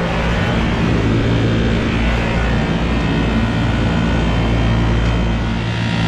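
Rooftop air-conditioning condensing unit running with a steady, loud mechanical hum while it is charged with refrigerant after a compressor replacement.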